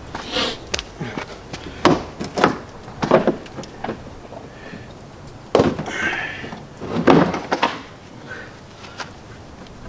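Plastic knocks, clicks and scraping as a Ford Flex's front bumper cover is pried and pulled free of its clips at the wheel-arch corner. Several sharp knocks come at uneven intervals, the loudest about two, five and a half and seven seconds in, with scratchy rubbing between them.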